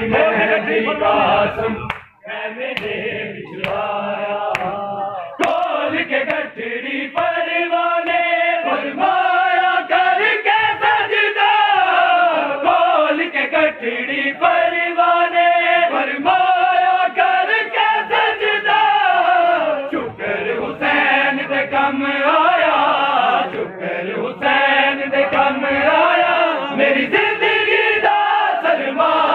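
A group of men chanting a Punjabi noha, a Muharram lament, in held, wailing phrases that fall in pitch at their ends, with sharp slaps of matam chest-beating among the voices.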